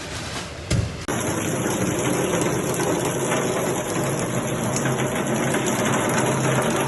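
Heavy storm rain pouring down steadily. A brief thump comes just before a second in, and then the sound jumps suddenly to a loud, dense downpour.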